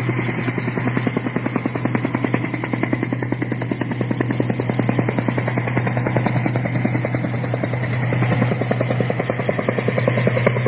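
Helicopter in flight: the main rotor beats rapidly and evenly over a steady low engine hum.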